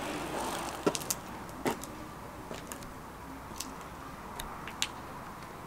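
Scattered light clicks and ticks over steady room noise, with a low hum that fades out a little past halfway.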